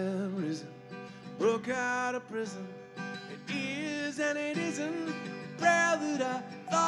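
Live band playing a song, with acoustic guitar, bass guitar, drums and keyboard, and a lead melody in short phrases that bend in pitch over steady low notes.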